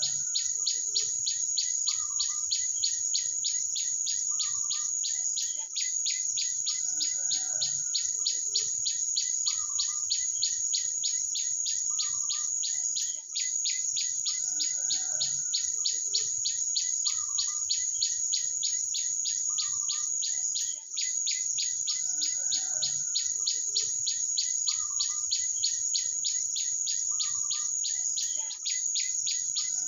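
A high-pitched, rapidly pulsing insect chorus, the loudest sound, with birds calling underneath in short repeated notes about once a second. The whole pattern repeats every seven or eight seconds, as a looped recording does.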